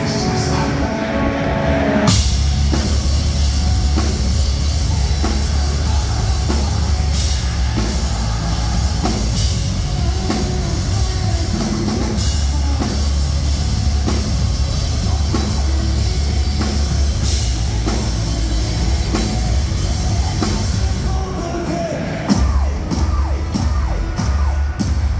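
Metalcore band playing live at full volume. A sustained chord rings for about two seconds, then the whole band comes in with heavy drums and deep bass.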